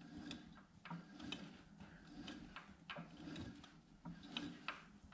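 Faint, irregular light clicks and rattles, about two a second, from the stopped Smithy CB-1220XL combo lathe being handled at its carriage and chuck.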